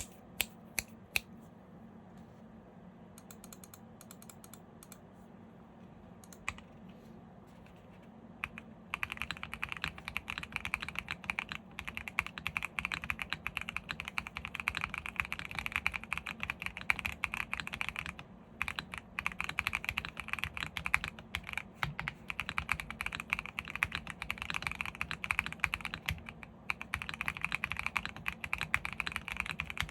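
Custom Mode Sonnet mechanical keyboard with a polycarbonate plate, stock WS Quartz switches and full foam being typed on: a few single keystrokes, then steady fast typing from about nine seconds in, broken by two short pauses.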